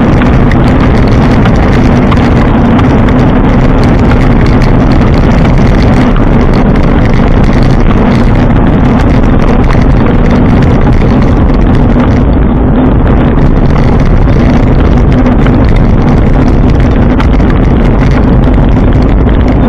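Loud, continuous riding noise from a bike on the move: a steady low drone mixed with rushing wind on the microphone, unchanging throughout.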